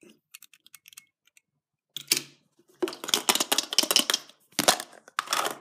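Hands handling hard plastic toys and a plastic surprise-egg capsule, with a toy car set down and the capsule picked up and worked open. A few faint clicks, then a quick run of clicks and rattles from about three seconds in.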